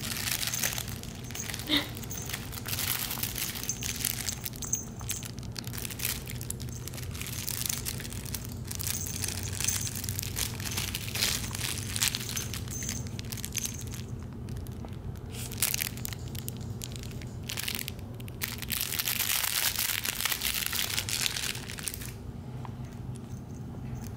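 Irregular crinkling and rustling as a Shih Tzu puppy bites, mouths and tugs at a plush toy.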